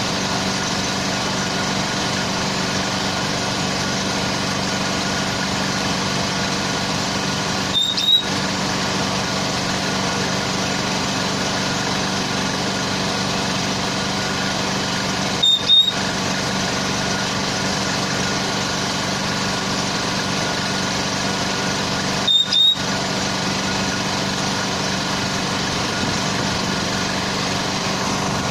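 An engine idling steadily, a constant drone with a low hum. It is broken three times, about seven seconds apart, by a brief crackling click.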